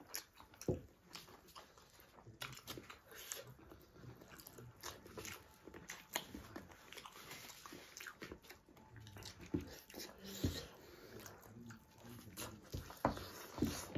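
Close-miked eating sounds: two people chewing and lip-smacking as they bite meat off chicken drumsticks and eat rice by hand, with many short, irregular wet clicks.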